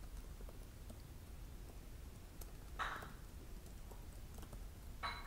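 Faint, sparse computer keyboard typing: scattered light key clicks, with two brief soft noises, one about three seconds in and one near the end.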